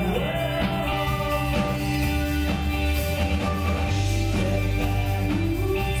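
Small rock band playing live: strummed guitar over bass and a steady drum beat.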